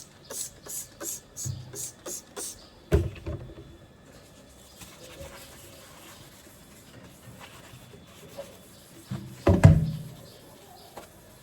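Handling sounds: a quick run of about seven short, hissy strokes, then a sharp knock about three seconds in, and a louder thump near the end.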